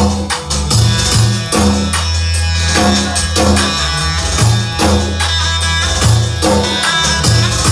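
Instrumental music with a steady drum beat and a repeating bass line, no singing.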